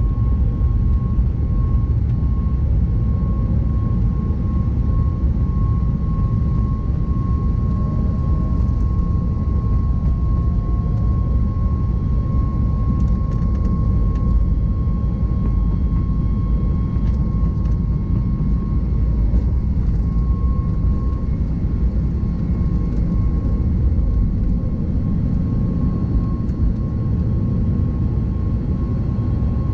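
Boeing 737 MAX 8's CFM LEAP-1B turbofans at takeoff thrust, heard inside the cabin during the takeoff roll: a loud, steady rumble of engines and wheels on the runway, with a steady tone above it.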